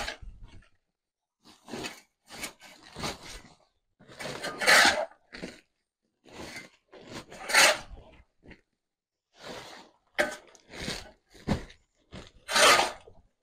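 A steel shovel scraping chicken manure and wood-shaving litter off a concrete floor and tipping it into a plastic sack: short scrapes and rustling pours come every second or so, with a longer, louder scoop about every three seconds.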